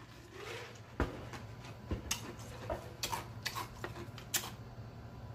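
A man drinking water from a large jug: a soft breath, then a series of short clicking gulps and swallows, over a steady low hum.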